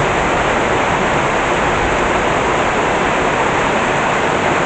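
Heavy tropical downpour, a deluge: a steady, unbroken rush of rain.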